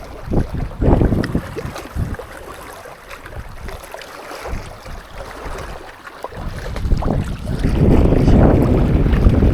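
Gusty wind buffeting the microphone: a low, rumbling rush, strong at the start, easing off through the middle and gusting hard again from about seven seconds on.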